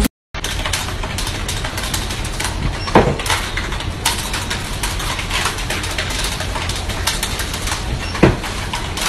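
Computer keyboard typed very fast: a dense, unbroken clatter of key clicks, with two heavier knocks, one about three seconds in and one near the end.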